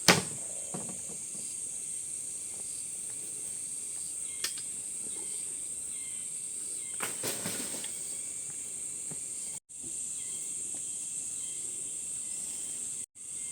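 A steady, high-pitched insect chorus, with a sharp knock right at the start, a small tap about four and a half seconds in and a brief rustle around seven seconds. The sound cuts out for an instant twice near the end.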